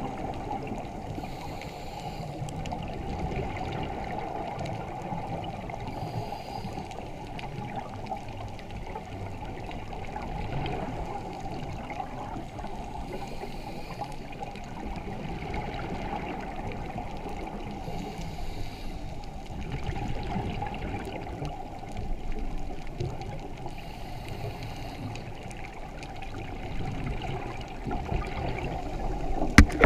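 Muffled underwater noise through a camera's waterproof housing: a steady low rush of water, with a brief hiss of a diver's exhaled bubbles about every five seconds. A couple of sharp knocks near the end, from the housing being handled.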